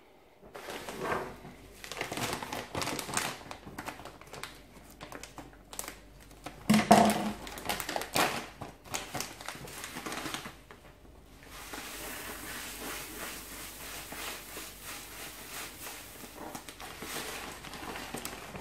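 Plastic bag of crushed malt crinkling as it is handled and opened, with a loud rustle about seven seconds in. From about twelve seconds on, a steady rustle as the crushed grain is poured from the bag into the mash tun.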